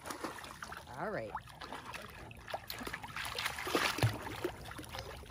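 Pool water splashing and sloshing as a Great Dane and a German Shorthaired Pointer move and play in the shallow end. The splashing gets busier in the second half, with a low thump about four seconds in.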